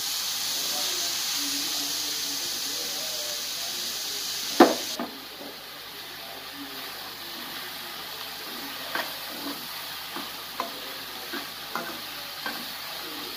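Bitter gourd and tomato sizzling as they fry in a metal kadai, stirred with a metal spatula. About halfway through the spatula gives one loud clank against the pan, then the sizzle quietens and the spatula taps and scrapes the pan several times near the end.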